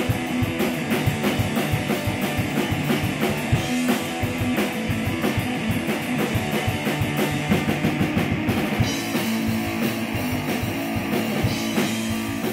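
Rock music with a drum kit and guitar, at a fast, steady beat.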